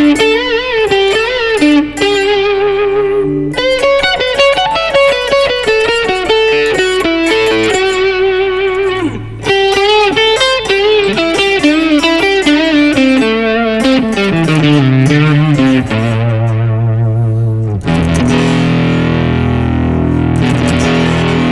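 Ibanez RC720 Premium electric guitar with Core-Tone humbuckers, played through an amp: a melodic single-note line with bends and vibrato, then lower, fuller held chords for the last few seconds.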